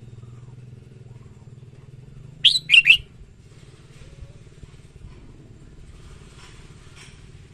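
Red-whiskered bulbul giving one short, loud song phrase of three or four quick notes about two and a half seconds in, with fainter chirps near the end. A steady low hum runs underneath.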